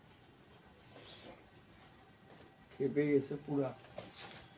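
A cricket chirping steadily, a high-pitched pulse about four times a second. A person's voice cuts in briefly about three seconds in.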